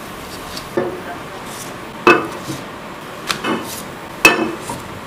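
Wooden spatula clinking and knocking against a glass plate as cooked flatbreads are slid onto a stack, with two sharp, louder clinks about two and four seconds in and a few lighter knocks between.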